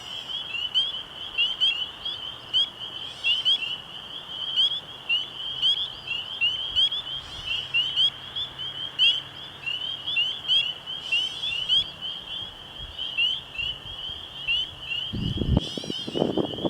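Chorus of frogs at night: a dense, continuous run of short, high, rising peeps from many calling together. A rush of wind noise comes up in the last second or so.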